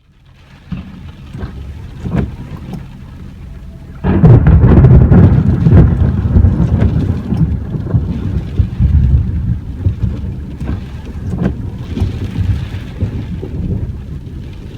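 Thunder rumbling over falling rain. A much louder, deep rumble comes in sharply about four seconds in and slowly fades.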